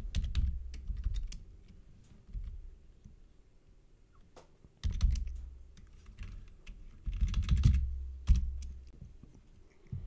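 Typing on a computer keyboard in three bursts of keystrokes, with a pause in the middle and the longest burst near the end.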